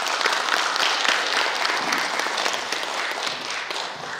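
Audience applause: many people clapping together, thinning and dying away near the end.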